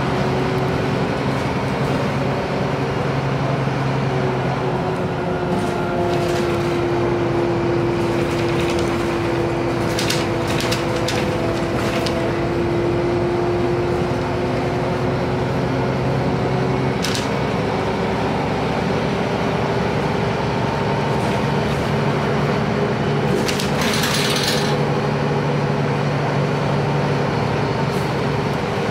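Heuliez GX 317 city bus heard from inside the cabin while under way: a steady diesel engine and drivetrain drone with a humming tone. Sharp clicks and rattles from the interior come now and then, in a cluster about ten seconds in and again near the end.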